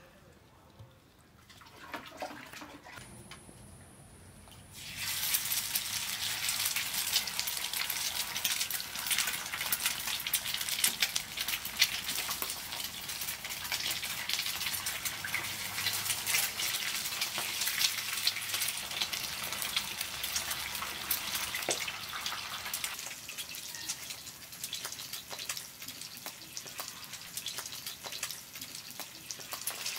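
Eggs frying in hot oil on a black iron griddle, a dense crackling sizzle with scattered pops. It is faint for the first few seconds, then starts suddenly about five seconds in and keeps going.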